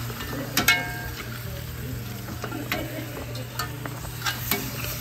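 Metal spoon and tongs clinking and scraping against an aluminium pot as curry-coated fish are stirred, over a soft sizzle from the hot pot. The clinks come roughly once a second, a few of them ringing briefly, with a steady low hum underneath.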